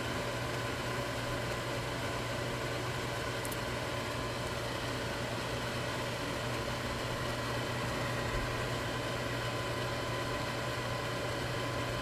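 IKEA microwave oven running with a steady low electrical hum.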